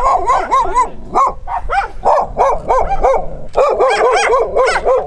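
Dogs barking in a quick string of barks, several a second, with a brief pause about three and a half seconds in.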